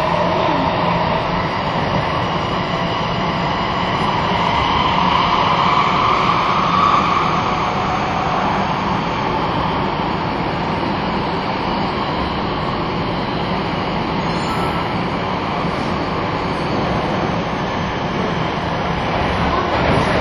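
Nagoya Municipal Subway 6050 series train running through a tunnel, heard from inside the car: a steady rumble of wheels on rail with motor hum, holding an even level.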